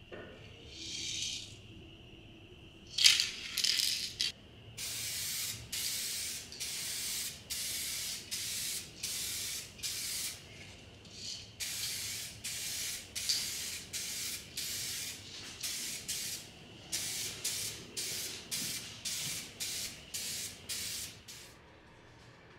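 Aerosol can of SprayMax 2K clear coat spraying: a short hiss about a second in, a louder burst around three seconds in, then a long run of short spray passes, about one a second with brief gaps and a couple of longer pauses.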